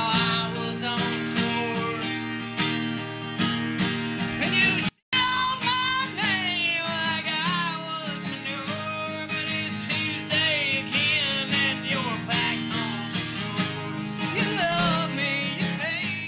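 Country-style music led by guitar, with a bending melody line over it; it cuts out for an instant about five seconds in.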